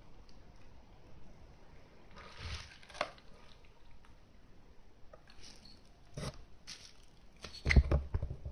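Handling noise from a hand turning a Canon 50mm f/1.8 lens: soft rubs and light clicks, a short rustle with a sharp click about two and a half seconds in, and a louder cluster of knocks near the end.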